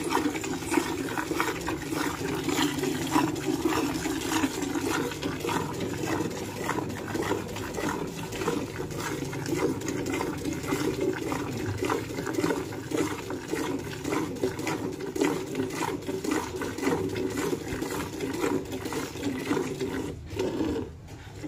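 A cow being milked by hand: quick alternating squirts of milk hitting the milk in a pail, in a steady rhythm that stops shortly before the end.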